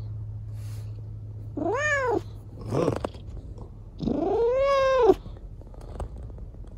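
A cat meowing twice, two drawn-out meows that rise and fall in pitch, the second one longer, with a short lower call between them.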